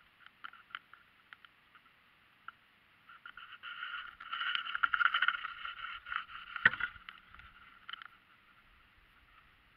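Handling noise close to the action camera's microphone: rustling and scraping with scattered clicks, thickest through the middle, with one sharp click a little before the end.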